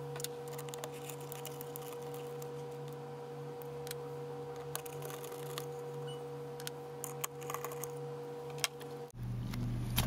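Scattered small metallic clicks and taps of a Torx screwdriver working the screws of a 2011 Mac Mini's Wi-Fi antenna plate, over a steady low hum.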